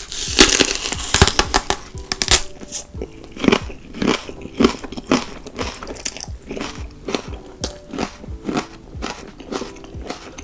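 Close-miked eating: a person chewing and slurping with a quick run of wet mouth clicks and smacks, the loudest and noisiest in the first second or so. Background music with held notes plays underneath.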